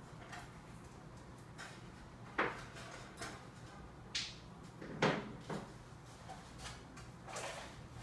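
African grey parrot making a few short, sharp clicks and pops, spaced a second or two apart, the loudest about five seconds in.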